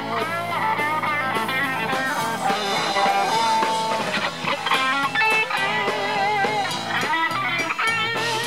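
Live rock band playing: an electric guitar lead with wavering, bent notes over drums and cymbals.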